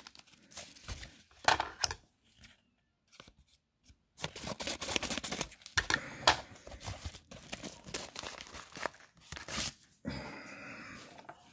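Cardboard shipping mailer and its packing tape being torn open by hand. Scattered crackles, a short pause, then about six seconds of dense ripping and crinkling.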